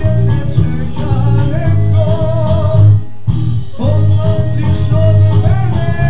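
Music on an arranger keyboard: a wavering lead melody with pitch bends over a steady bass-and-drum accompaniment, cutting out briefly about three seconds in.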